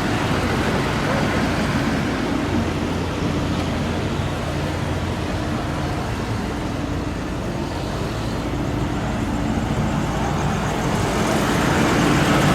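Steady road traffic noise with a low engine hum running underneath, growing louder near the end.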